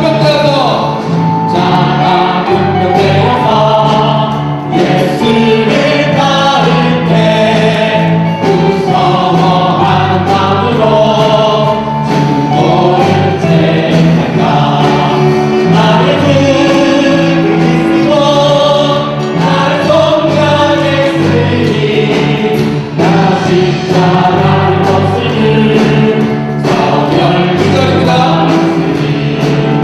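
A church choir singing a sacred song, several voices holding long notes over a steady low accompaniment.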